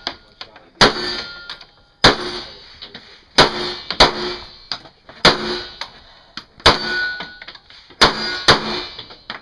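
Single shots from an H&K MP5 submachine gun, about eight of them spaced roughly a second or so apart, each followed by the clang and ringing of a struck steel target.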